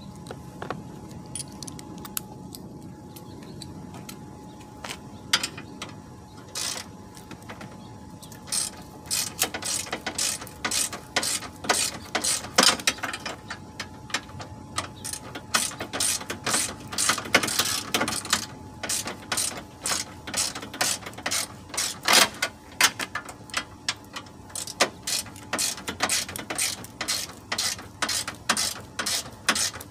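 Hand ratchet wrench clicking in quick runs of strokes as bolts are backed out during front bumper removal. A few scattered clicks at first, then steady runs of clicking from about a third of the way in.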